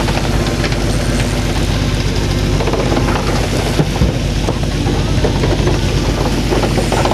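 A fishing boat's engine running under a steady rush of wind and sea water.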